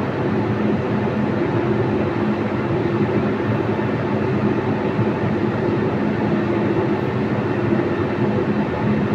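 A steady mechanical hum and rumble with a constant low drone, unchanging throughout.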